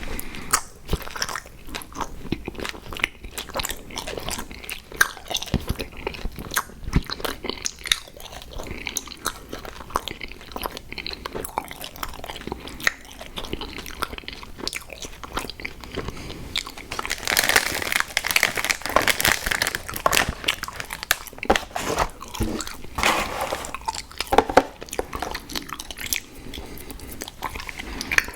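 Close-miked mouth eating sounds: crunching and chewing of sour gummy-worm cereal, with a string of sharp crackles and wet smacks, busiest and loudest about two-thirds of the way through.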